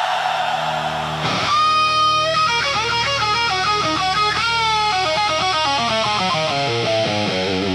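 Hard-rock music: a distorted electric guitar solo, a long bent note about a second and a half in, then fast runs of notes over a steady backing.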